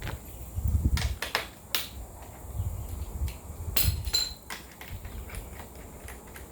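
Scattered metallic clicks and knocks of hand tools and parts as a radiator mounting bolt is worked out, one knock leaving a brief ring, with low rumbling handling noise between them.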